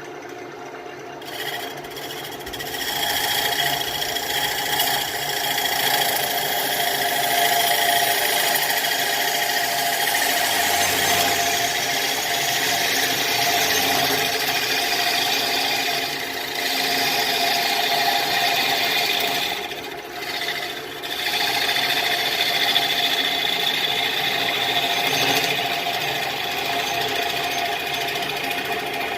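Wood lathe running with a tool working the spinning Russian olive bowl blank, a steady hiss of wood being cut over the hum of the machine. The cutting noise drops away briefly just after the start and again about twenty seconds in, as the tool comes off the wood.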